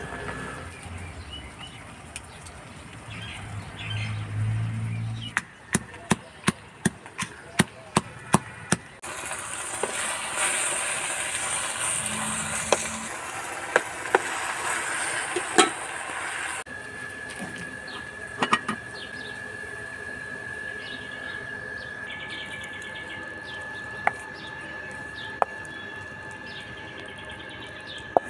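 Food sizzling in a hot pan for several seconds as red spinach is stirred with spices, preceded by a run of sharp clicks. Later, birds chirp faintly over a steady high tone.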